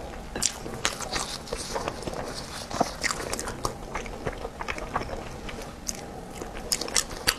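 Close-miked chewing of soft sticky-rice meat zongzi: wet mouth clicks and lip smacks at an irregular pace, with a few sharper clicks near the end.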